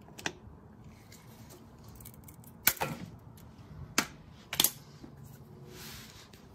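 A ratchet and hex socket on a transmission drain bolt, giving four sharp metallic clicks and clanks as the bolt is worked loose and the tool comes away, the loudest about two and a half seconds in. A short soft rustle follows near the end.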